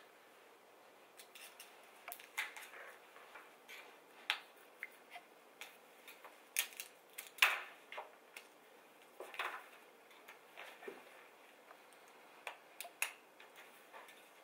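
Faint, irregular clicks and scratches of a snap-off utility knife blade cutting adhesive vinyl film along the floor at the base of a column, with a few sharper ticks.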